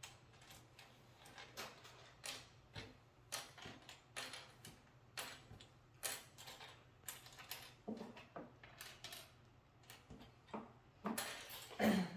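Loose plastic Lego pieces clicking and clattering in irregular small taps as they are picked up, handled and set down while being sorted. A brief louder vocal sound comes near the end.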